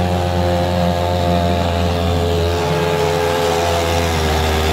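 Homemade outboard motor built from a Stihl two-stroke chainsaw engine, running steadily under load as it drives the boat's propeller. Its pitch sags a little in the second half.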